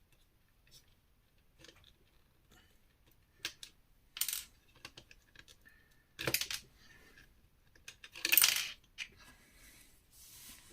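Plastic LEGO bricks clicking and clattering as they are handled and picked through, with faint ticks between a few short rattles, the longest and loudest about eight seconds in.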